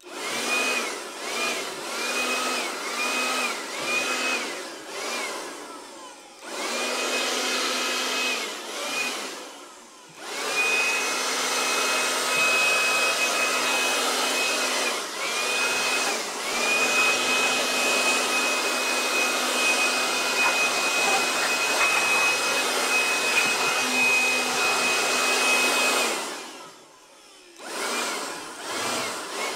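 KIMO QM6001 cordless blower running: a high motor whine over rushing air, rising in pitch each time the trigger is pulled. It gives several short blasts at first, then longer runs of several seconds, with a brief stop near the end before it starts again. It is blowing sawdust off the floor.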